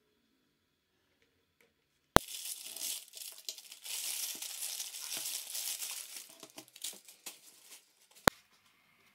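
Crinkling and tearing of a crumpled paper parcel wrapper and the shiny bag inside it as hands open it. The sound runs for about five and a half seconds after a sharp click two seconds in, and another sharp click comes near the end.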